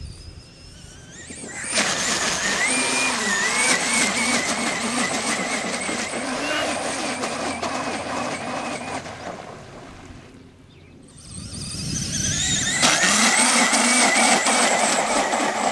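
Electric RC monster truck's brushless motor whining at full throttle as the truck hydroplanes across water, over a steady hiss of spray. The whine wavers in pitch, fades about ten seconds in, then climbs again a couple of seconds later for a second run.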